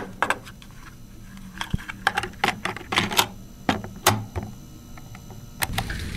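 Irregular sharp clicks and taps, sometimes in quick clusters and sometimes a second or so apart, over a steady low hum: sound effects at the opening of a student radio drama.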